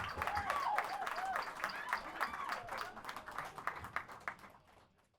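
Small club audience clapping and cheering after a band's final song, the applause fading out near the end.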